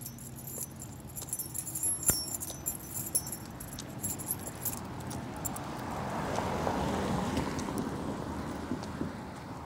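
Light metal jingling over the first couple of seconds, then a car passing on the street, building from about five seconds in, loudest around seven seconds, and fading near the end.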